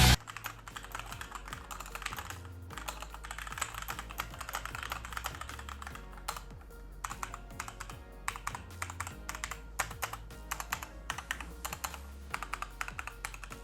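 Keychron K2 aluminium-cased mechanical keyboard with Gateron Brown switches and ABS double-shot keycaps being typed on at a steady pace: dense runs of rapid keystrokes with a few brief pauses.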